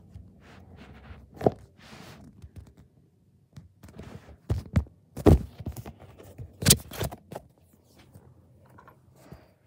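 Handling noise from a handheld camera being moved about: scattered knocks, scrapes and rustles, with a few sharp knocks a little past the middle.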